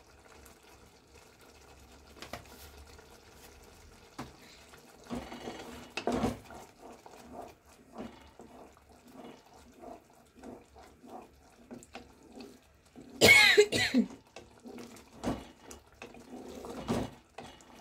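Wooden spatula stirring and scraping thick chicken sauce in a saucepan, with many soft knocks against the pot. A louder sudden noise comes about 13 seconds in.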